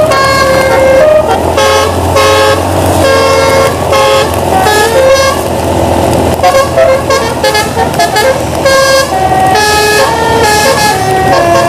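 A bus's telolet musical air horn playing a tune of short horn notes that step up and down in pitch, one after another. The bus's engine runs low underneath.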